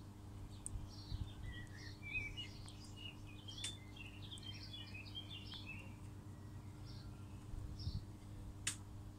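Small birds chirping and twittering in quick, gliding notes, busiest in the first two-thirds, with a few sharp clicks and a steady low hum underneath.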